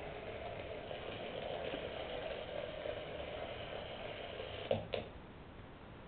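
An m3pi robot's small geared drive motors whir steadily as it drives. Just before five seconds in there are two sharp clicks, and the whirring stops as the robot comes to rest.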